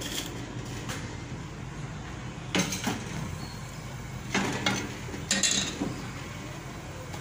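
Steel ladle clinking and scraping against a metal cooking pot of heating oil, several knocks in quick pairs from about two and a half seconds in, over a steady low background hum.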